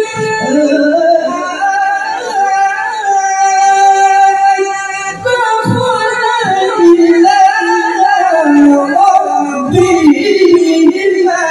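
A male qari's voice amplified through a handheld microphone, reciting the Qur'an in the melodic tilawah style. He draws out long ornamented notes in a high, piercing register, with a short breath break about five seconds in.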